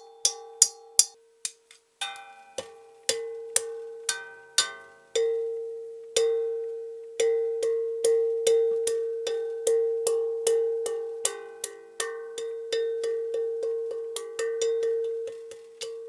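The empty, cut-open steel shell of a hermetic refrigerator compressor is struck over and over with a metal rod, played as an improvised percussion instrument. It rings with one steady note and higher overtones. The hits come a few a second, quicker in places, and from about five seconds in the ring carries on between them.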